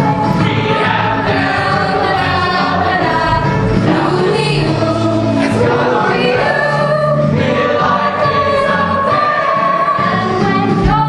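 Stage musical cast singing together as a large chorus over musical accompaniment.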